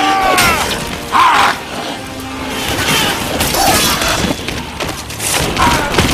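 Dramatic film-style battle soundtrack: music under sudden clashing and crashing impacts and short cries from fighters, with a loud hit just after the start and others scattered through.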